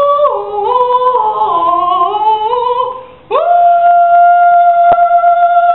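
A person singing in a high voice without words: a phrase of stepped notes rising and falling, a brief break, then one long held high note.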